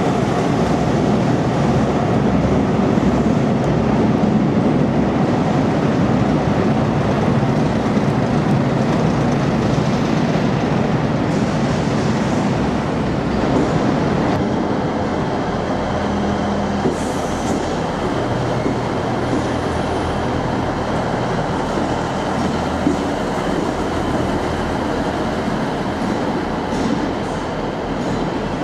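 An InterCity 125 HST running past along the platform, its Class 43 diesel power car rumbling by under the station roof. After a change about halfway through, a Class 158 diesel multiple unit runs in, with a steadier engine hum and a faint high whine.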